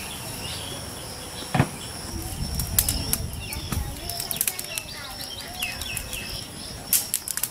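Wood fire burning with sharp crackles and pops, over small birds chirping in the background. A single thump about a second and a half in.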